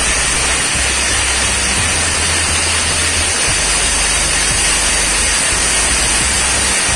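Handheld angle grinder with an abrasive cutting disc cutting through 2-inch iron pipe: a steady, loud grinding rush of wheel on metal with a thin, high motor whine.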